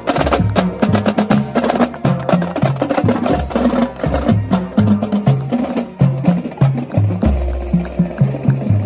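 Marching band drumline playing a cadence: snare drums with rapid, crisp stick strokes over tuned marching bass drums sounding a run of low notes at several different pitches.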